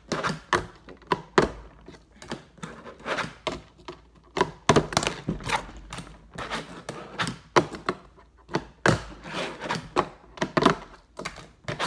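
Fingerboard clacking on a cardboard board-game box and tabletop: many quick, irregular knocks and taps as the little deck and wheels pop, flip, land and grind during trick attempts.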